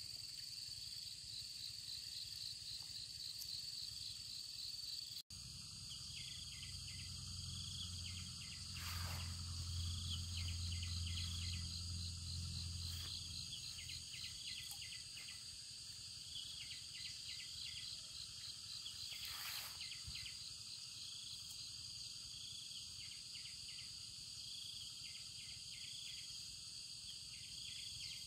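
Insects chirping in the grass: a steady high trill with a faster pulsing chirp over it. A low hum comes in for several seconds in the first half.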